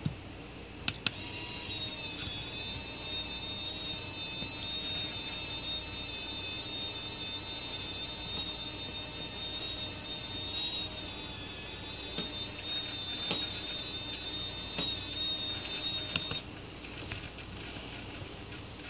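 Small electric winch motor on an SCX10 RC crawler reeling in its line under load, pulling another RC truck toward it: a steady high-pitched whine. It starts with a click about a second in and cuts off suddenly about sixteen seconds in.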